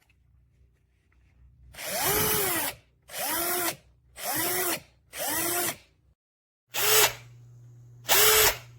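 Black+Decker 20V MAX cordless driver run in six short trigger pulls, the motor whirring up in pitch and winding down each time. The first run lasts about a second, and the last two near the end are briefer.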